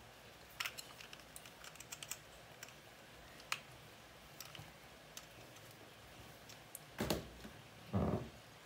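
A screwdriver working a screw on the shaft of a plastic spinning fishing reel: scattered light clicks and taps of metal on metal and plastic, with two louder handling knocks near the end.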